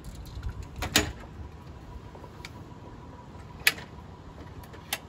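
Aluminium screen door frame of a pop-up camper being handled: two sharp knocks, about a second in and again near four seconds, with a few fainter clicks between.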